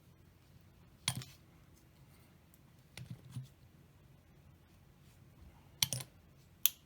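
Sharp clicks and taps of small styrene plastic model-kit parts being handled and pressed together, a few seconds apart; the last click near the end is the wing halves snapping into place.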